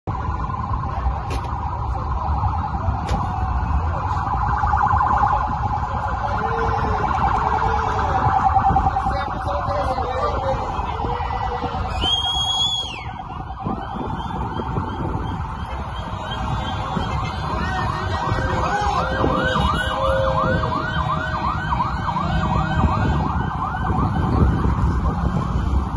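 Vehicle siren wailing and then yelping in quick repeated up-and-down sweeps over a rumble of road traffic, with a brief rising high-pitched tone about twelve seconds in.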